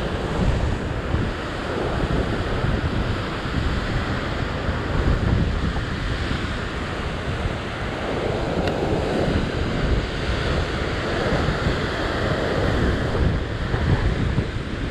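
Rough surf breaking and washing over rock ledges, with strong wind buffeting the microphone in a steady low rumble.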